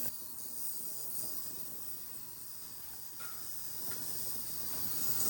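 Vevor ultrasonic cleaner running, with a steady hiss from the soapy water in its tank being worked by the ultrasound; described as sounding annoying.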